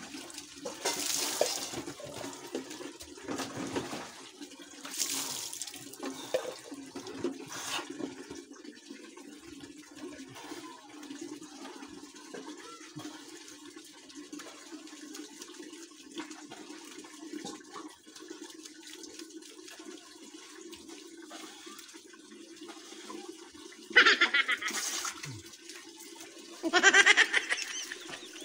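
Water splashing as it is poured and scooped during a bucket-and-dipper bath, in separate splashes in the first seconds and louder ones near the end, over a steady low hum.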